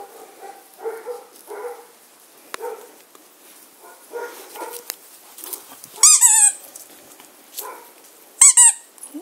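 German shorthaired pointer puppies barking in short yaps as they play. Two loud, high squeals with a wavering pitch come about six and eight and a half seconds in.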